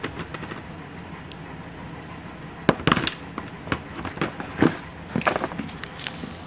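Scattered clicks and clacks of metal-wheeled Beyblade spinning tops being picked up and handled by hand, with the loudest knocks in a cluster near the middle and again a couple of seconds later.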